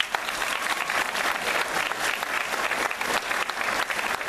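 Large audience of schoolchildren and adults applauding, a dense, steady clapping.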